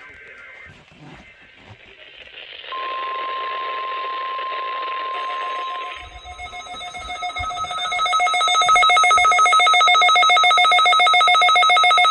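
NOAA Weather Radio alert tones for the weekly SAME test, heard over radio hiss: a brief warbling two-tone data burst, then a steady single beep tone for about three seconds, then a fast pulsing multi-tone alarm from a weather radio receiver that grows louder for a couple of seconds and then holds.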